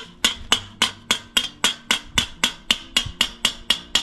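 Cast iron charcoal grill's wire cooking grate being rattled in the kettle: a quick, even run of sharp metallic clinks, about four a second, that stops near the end.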